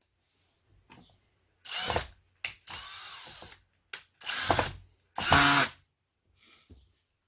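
A small electric screwdriver run in four short bursts, about half a second each, with a sharp click between them.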